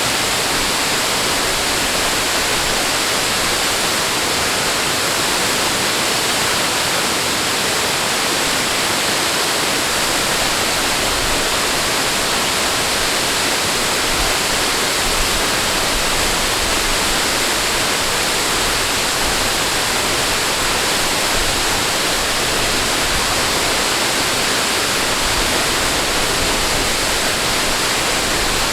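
Steady, unbroken rush of flowing water, like a waterfall or fast stream, with no swells or pauses.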